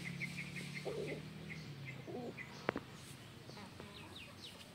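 Small birds chirping: rapid, short falling chirps, several a second at first and thinning out, with a couple of brief low calls about one and two seconds in and a single sharp click near the middle.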